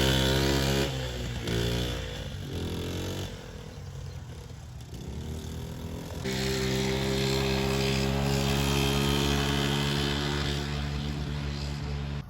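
Small single-cylinder four-stroke engine of a 1979 Honda Z50 minibike running, then bogging. About a second in its revs sag and it nearly dies. A few seconds later it picks back up to a steady run, and it cuts off abruptly at the end.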